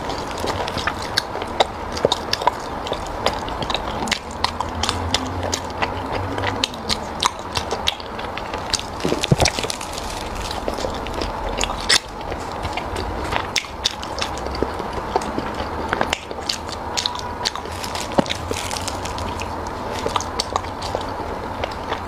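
Close-miked chewing and mouth sounds of someone eating, with many small sharp clicks and smacks.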